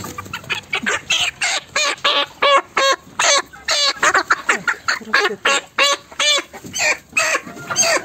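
Young Kuchinsky jubilee chickens calling in a rapid, continuous series of short, arched squawks, about three a second.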